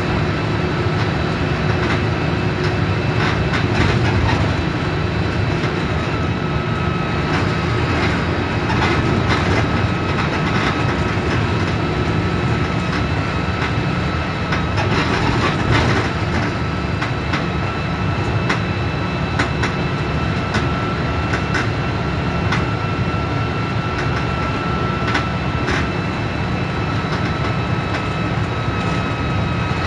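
Mercedes-Benz OF 1721 Bluetec 5 city bus with its front-mounted diesel engine running, heard as a steady drone full of short rattles and clicks from the bodywork, with a thin steady whine over it.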